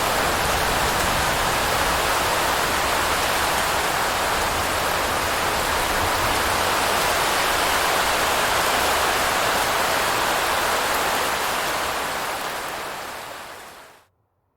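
Steady heavy rain falling, an even rushing hiss that fades out over the last few seconds.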